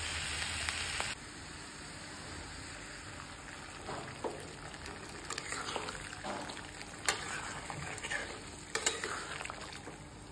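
Food frying and sizzling in a wok on a gas burner, with a steel spatula stirring it and a few sharp scrapes against the pan.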